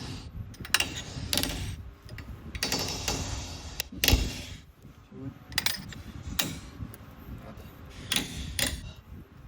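Metal clanks, knocks and a scrape from hand tools and steel parts being handled while working on the rear axle, with a heavy thump about four seconds in.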